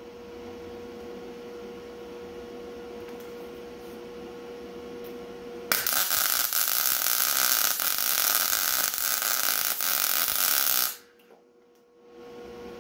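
A wire-feed welder laying a weld on a steel bracket: a loud, steady crackling hiss that starts about six seconds in, runs for about five seconds, and cuts off suddenly. Before and after it, a steady hum.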